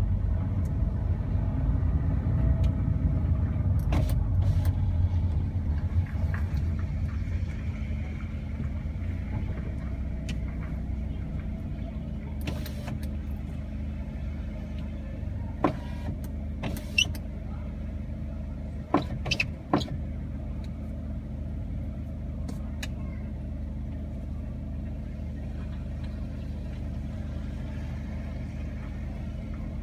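Car rolling slowly in city traffic, a low engine and road rumble that settles to a quieter, steady idling hum about seven seconds in as the car comes to a stop. A handful of sharp clicks sound around the middle.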